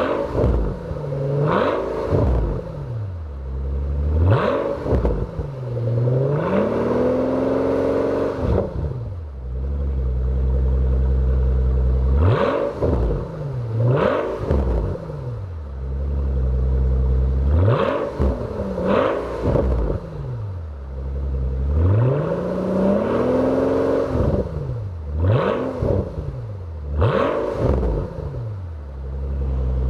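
Mercedes-Benz S65 AMG's twin-turbo 6.0-litre V12 revved about a dozen times through its quad exhaust tips. Each rev rises sharply and falls back to a low idle, with a couple held for a second or two and short idle spells between. The revs are capped around 3,000 rpm by the rev limiter for the parked car.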